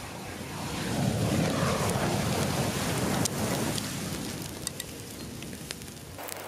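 Thousands of sparklers burning at once: a loud rushing hiss of fire that swells about a second in, holds, then fades over the next few seconds, with a few sharp crackles.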